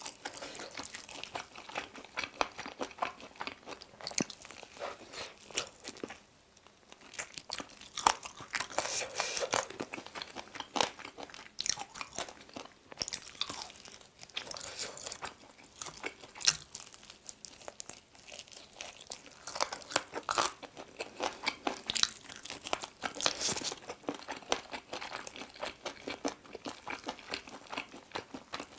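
Biting and chewing of Goobne's sauce-coated Mala Volcano roasted chicken wings and drumsticks: irregular crunches that come thick and fast, with a short pause about six seconds in.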